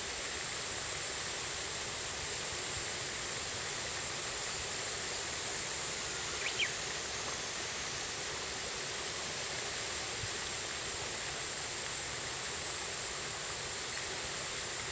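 Steady rushing of a river's current. A short, sharp sound stands out once, about six and a half seconds in.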